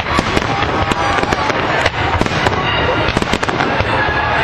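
Aerial fireworks display: a dense, unbroken barrage of bangs and crackling bursts.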